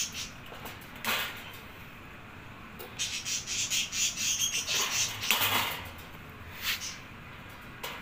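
Combination pliers cutting the thin wire bars of a bird cage: a sharp snip about a second in, a stretch of rapid crackling and rustling in the middle, and two more short snips near the end.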